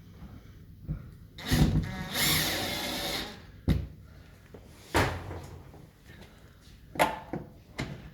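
A cordless drill-driver runs for about a second and a half, driving a screw to fix a wall-mounted dispenser, followed by several sharp plastic knocks as the dispenser is handled.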